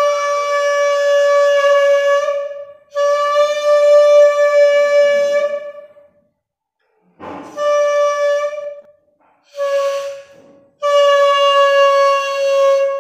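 Homemade balloon whistle, a stretched balloon sounding over a pen-part mouthpiece and pipe, blown in five blasts of one steady, reedy pitch with short breaks between them. The first two and the last are long, and the middle two are short. A breathy puff comes just before the third.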